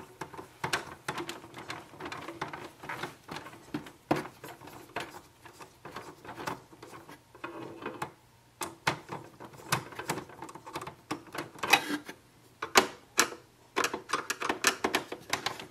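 Screws being undone with a screwdriver from the ink tank housing of an Epson ET-3830 EcoTank printer: a run of irregular clicks and taps.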